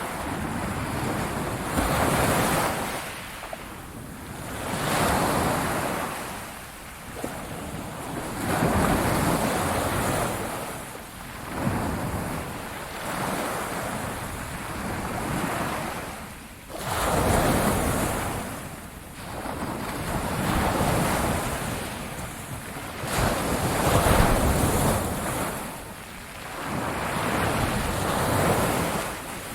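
Ocean surf: waves breaking and washing up the shore, each surge swelling and falling away every three to four seconds.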